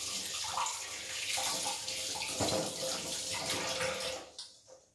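Water running steadily from a kitchen tap, then shut off about four seconds in.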